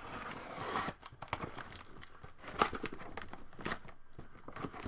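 Box cutter slitting the packing tape on a cardboard shipping box, then the tape and cardboard flaps crackling and rustling as the box is pulled open, with a few sharp clicks and snaps.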